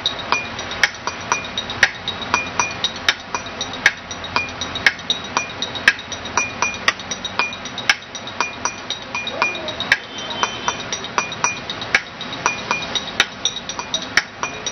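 Chopsticks drumming on a drinking glass and other tableware: a quick, fairly steady beat of sharp taps and glassy clinks, played as a makeshift drum kit.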